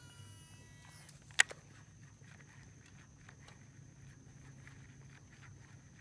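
A cast with a baitcasting reel: a faint whine from the spinning spool falls in pitch over the first second, then one sharp click about a second and a half in. After that, faint ticks over a low steady hum as the lure is retrieved.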